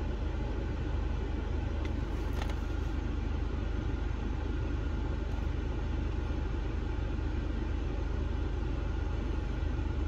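Skoda Superb's 2.0 TDI four-cylinder diesel engine idling steadily.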